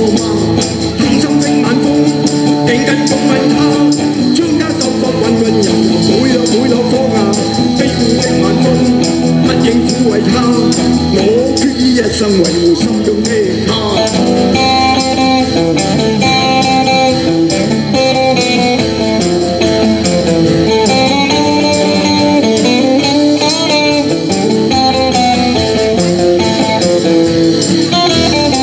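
Live band music: electric guitars over a drum kit, with a sung vocal over roughly the first half. About halfway through, the music changes to steadier, higher melodic notes.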